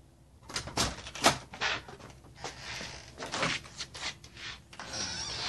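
A storm door opening and knocking, with several sharp clunks, then the branches of a cut Christmas tree rustling and scraping as it is carried through the doorway.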